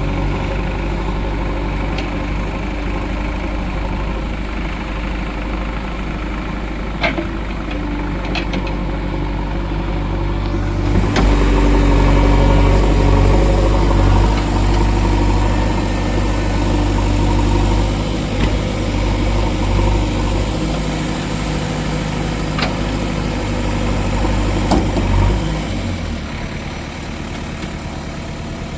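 JCB 3DX backhoe loader's diesel engine running, working harder partway through and easing off near the end, with a few sharp knocks along the way.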